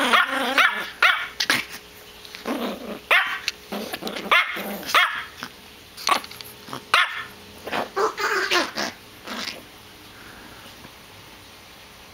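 Yorkshire terrier growling and barking in repeated short bursts while guarding its fleece rope toy from another dog, a toy-guarding outburst; the bursts stop a little past three-quarters of the way through.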